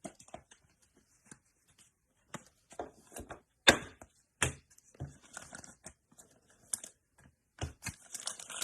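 Trading cards being handled: a string of soft clicks and taps as cards are shuffled and set down, with two louder sharp clicks about midway and rustling near the end.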